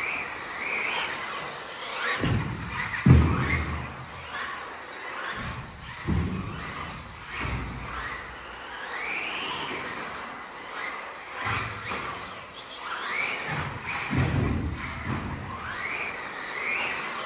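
Xray XB4 1/10-scale electric 4WD RC buggy driving laps on a carpet track, its motor whining up and down with speed. Several thumps break in, the loudest about three seconds in.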